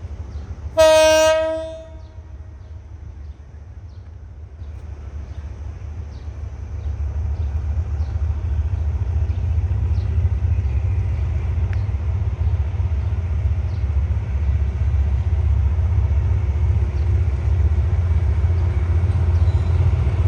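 A train horn sounds one steady-pitched blast, about a second long, near the start. A low rumble then grows louder from about six seconds in and holds, as a train draws near.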